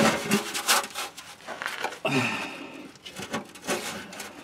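Rusted exhaust muffler and pipe being worked by hand under a van: scattered scrapes and knocks of corroded metal against the hanger. A couple of short grunts of effort come about the start and about two seconds in.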